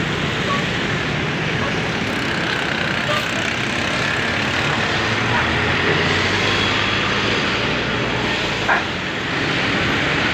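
Steady road noise of vehicles, with a short sharp sound near the end.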